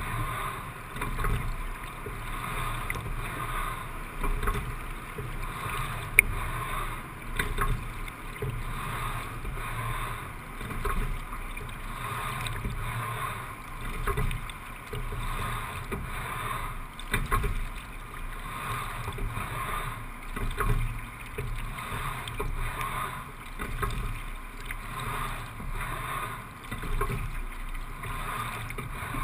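Single scull rowed at a steady-state pace of about 17–18 strokes a minute: water rushing past the hull, with a surge of sound and knocks at each stroke, about every three and a half seconds. There is one sharp click about six seconds in.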